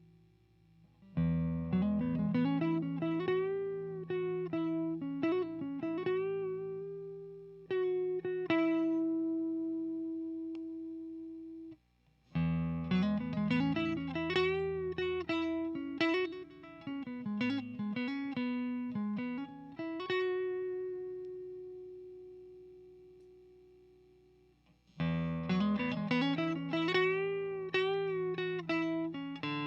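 Electric guitar with single-coil pickups, a PRS Silver Sky, played through an HTJ Works Valve Crystal 12AX7 preamp pedal into a 6L6 tube amp's effects return. It plays three lead phrases with string bends. The first two each end on a held note that rings out and slowly fades, and the third starts near the end.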